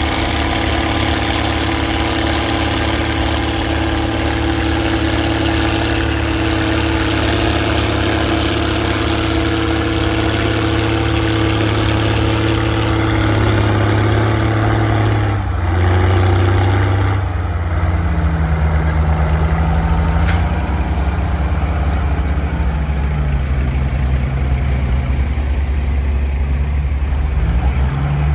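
Straight-piped Case 1056XL six-cylinder diesel engine running loud and steady under ploughing load. About halfway through the note changes, and the engine speed then drops and climbs again a few times.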